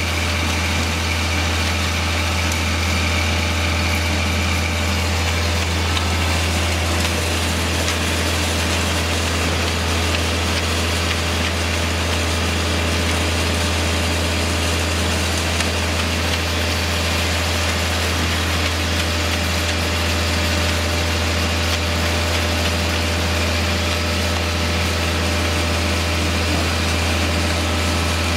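Heavy truck diesel engine running steadily, a constant low drone with no change in speed.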